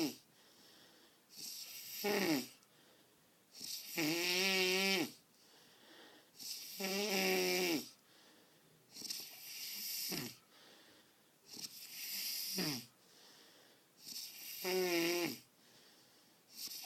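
A man snoring: six loud snores, about one every two and a half seconds, with quiet gaps between. Several snores carry a pitched tone that drops in pitch at the end of the snore.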